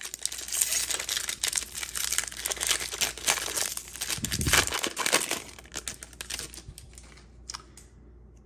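Wrapper of a 2024 Topps Series 1 baseball card pack being torn open and crinkled by hand, a dense crackling that dies away about six seconds in.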